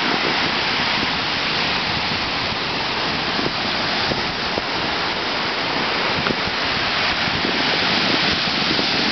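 Steady rushing hiss of ocean surf breaking on the beach, even and unbroken throughout.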